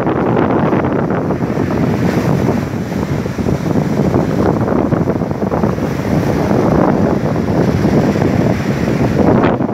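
Ocean surf washing on the shore, mixed with strong wind buffeting the microphone in a loud, continuous rumbling rush.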